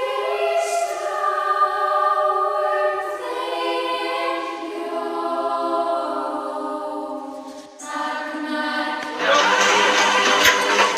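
A choir singing long held chords, with a brief pause near the end of the phrase. About nine seconds in, a louder, denser music track cuts in.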